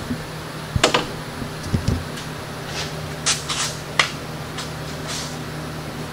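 Several short clicks and knocks of PVC pipes and a bar clamp being handled against a wooden frame, over a steady low hum.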